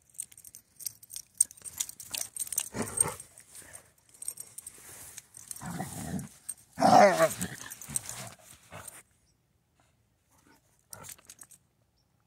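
Two hounds play-wrestling, growling at each other over scuffling paws and jingling collar tags, with a louder cry about seven seconds in. The noise dies away about nine seconds in.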